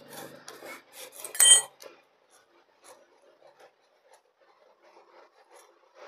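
Flat metal tool scraping and turning in the slot of a screw-in inspection cap on a Hero Super Splendor's crankcase cover. There is a sharp metallic clink that rings briefly about a second and a half in, then only faint scratching.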